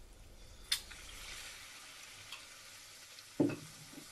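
Batter-coated boiled egg half slipped into hot oil: a sharp spit a little under a second in, then the steady sizzle of deep-frying. A short dull thud about three and a half seconds in.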